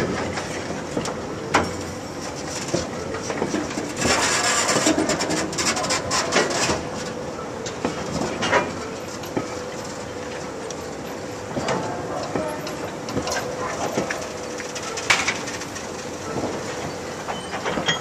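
A train of heavy steel-works slag-ladle wagons rolling slowly on rails, with a continuous rumble and clatter of wheels and running gear. Sharp metallic knocks come now and then, and a louder, noisier stretch of clanking runs from about four seconds in to six and a half.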